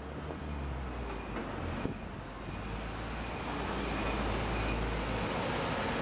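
Heavy truck traffic passing close by, a concrete mixer truck among it: a low, steady engine drone with road noise that grows louder over the first few seconds and stays up.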